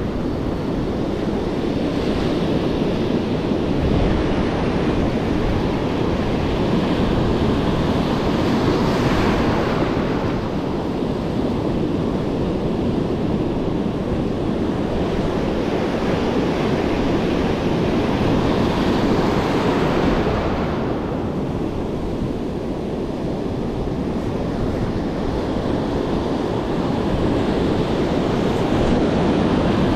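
Surf breaking on a sandy beach, a steady wash that swells and fades in long surges about every ten seconds, with wind buffeting the microphone.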